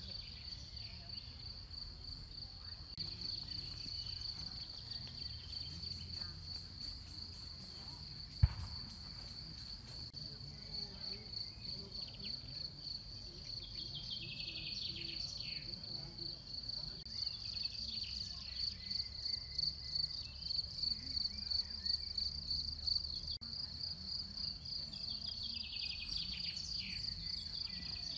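Crickets chirping steadily in a continuous high, pulsing trill, with a low rumble underneath and one sharp knock about eight seconds in.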